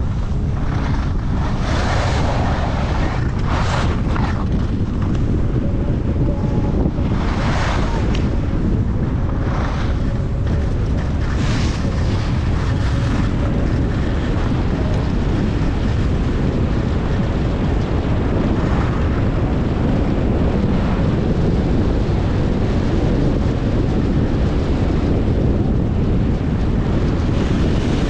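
Wind buffeting a helmet or chest-mounted action camera's microphone while skiing downhill, a steady loud rumble. Over it, the skis hiss and scrape on the snow in turns, every couple of seconds in the first half and more sparsely after.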